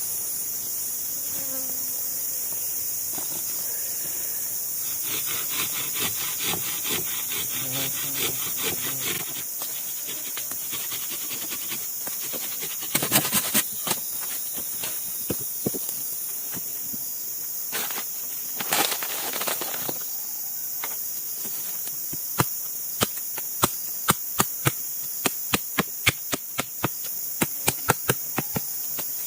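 Tropical forest insect chorus, a steady high-pitched drone. Over it, wood is being worked by hand: a stretch of quick rasping strokes early on, then sharp knocks, coming about two a second near the end.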